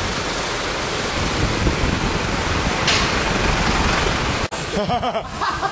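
Steady rushing noise from a camera carried on a moving BMX: wind over the microphone while riding. About four and a half seconds in it cuts off abruptly, and people's voices follow.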